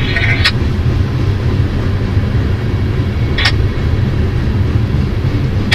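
Freight train of tank cars rolling past close by: a steady low rumble of steel wheels on rail. A brief higher-pitched sound comes just after the start, and a short sharp one about three and a half seconds in.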